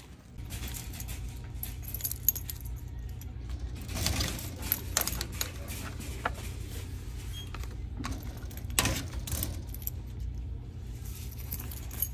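A bunch of keys jangling and clicking as a metal post office box is unlocked and its small door opened, with a few louder clinks and clatters, over a steady low hum.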